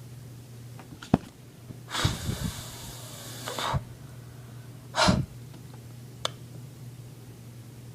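A person breathing: a long noisy breath of about two seconds, then a short sharp breath a few seconds later, with a couple of faint clicks, over a low steady hum.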